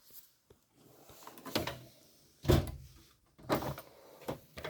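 Metal tool chest drawers sliding closed and open, with the loudest thud of a drawer shutting about two and a half seconds in, then a few shorter slides and knocks.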